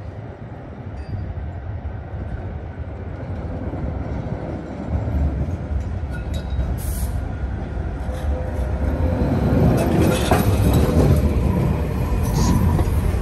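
Tram approaching on the rails and passing close by, its wheels rumbling on the track and growing steadily louder as it nears. Sharp clicks and rattles come in during the last few seconds as the cars go past.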